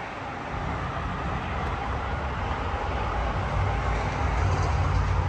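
Steady low rumble of outdoor background noise, growing slowly louder.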